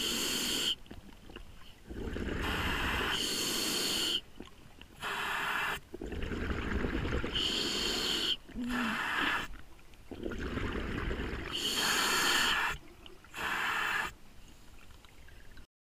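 Scuba diver breathing through a regulator underwater: hissing inhalations alternating with rumbling, bubbling exhalations, several breaths in a steady rhythm. The sound cuts off suddenly near the end.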